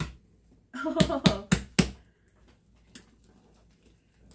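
Large batch of fluffy slime popping and crackling under pressing hands as trapped air bursts out of it: a quick run of four sharp pops about a second in, then only faint clicks.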